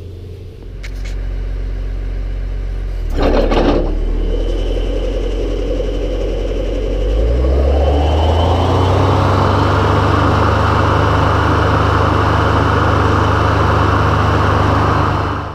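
Tractor engine running with a Diamond side-arm boom mower attached, a brief burst of noise about three seconds in. About seven to eight seconds in the engine speeds up as the mower head spins up, and the tractor and spinning head then run on as a loud, steady rush.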